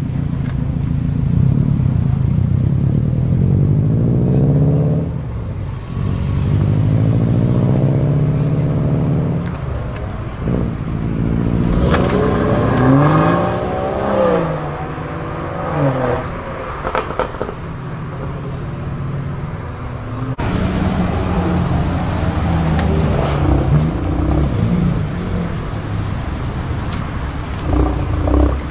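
Modified cars driving slowly past one after another, each engine and exhaust rising in pitch as it pulls away. Near the middle, one engine is revved so the pitch rises and falls several times.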